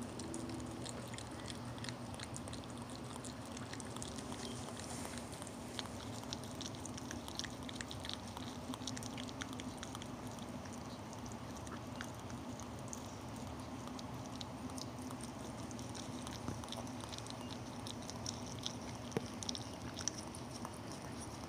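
Mother Chihuahua licking her newborn puppy: a steady run of small, soft wet clicks and smacks.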